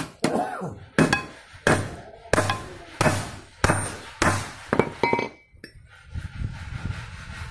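Steel hammer blows on a Tata 1210 truck brake shoe, eight or nine sharp strikes about two-thirds of a second apart, each with a short metallic ring, stopping about five and a half seconds in. The blows are riveting the new brake lining onto the shoe.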